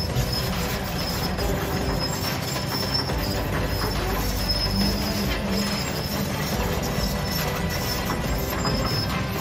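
Kobelco SK200 hydraulic excavator working: its diesel engine running steadily, with a high thin squeal coming and going over it.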